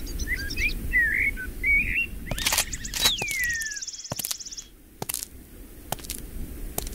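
Bird calls: quick twittering chirps, then a single long falling cry, over a steady low wind-like rumble. A brief fast buzzing rattle sits under the cry, and the second half holds several scattered sharp clicks.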